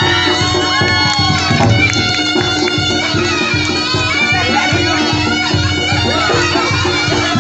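Jaranan music: a slompret reed shawm playing a wavering, ornamented melody over a steady held tone, with quick, even drum strokes driving the rhythm.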